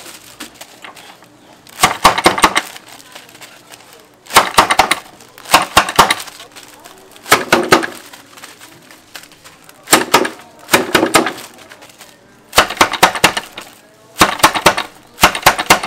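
Crisp, brittle roasted laver sheets crackling in short bursts of sharp crinkles, about every one to two seconds, as they are handled and snapped.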